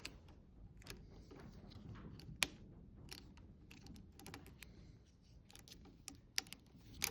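Scattered small clicks and taps of hand-handled tools and fittings, irregular and sparse, with a sharper click about two and a half seconds in and a couple more near the end, over faint room noise.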